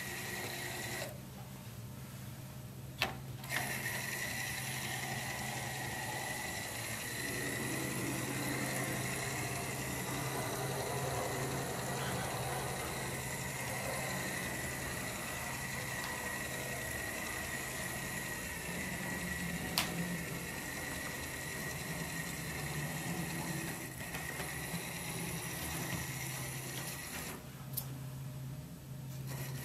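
Small electric motor and gears of an HO scale switcher locomotive whining steadily as it runs on a 9-volt battery over newly laid track, with wheel noise on the rails. The whine drops out briefly twice, about a second in and near the end, and there are two sharp clicks.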